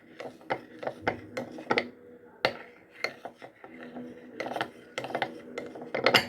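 A spoon clinking and scraping against the honey container and the cup while honey is scooped out and added: a run of irregular light knocks, some with a brief ring.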